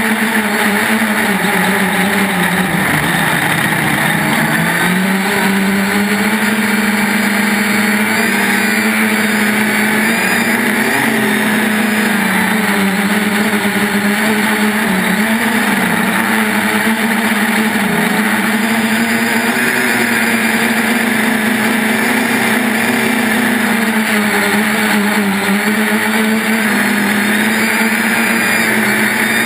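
3DR Iris+ quadcopter's electric motors and propellers whining in flight. The pitch wavers up and down with throttle changes and drops briefly about three seconds in.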